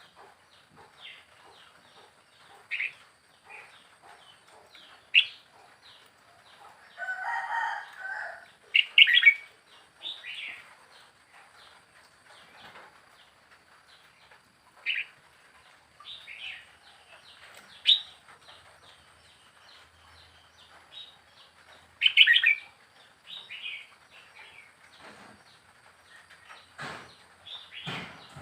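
Red-whiskered bulbul giving short, scattered chirps and whistled call notes, with a louder, lower-pitched burst about seven seconds in and a few low thuds near the end.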